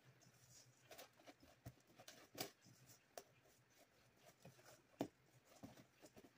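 Faint, irregular scraping and clicking of a utensil stirring a sticky oat and peanut butter mixture in a stainless steel bowl.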